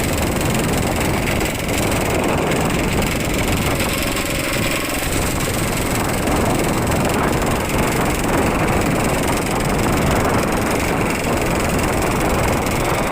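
Strong wind buffeting the microphone: a loud, steady rumbling roar with no clear pitch.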